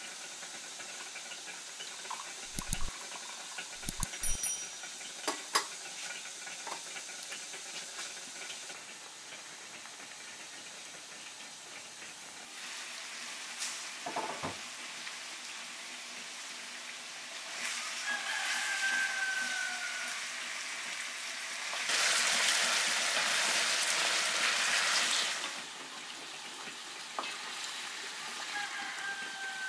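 Chicken frying in a large pot with a steady sizzle and stirring, with a few sharp clinks in the first seconds and a loud hiss lasting about three seconds past the middle.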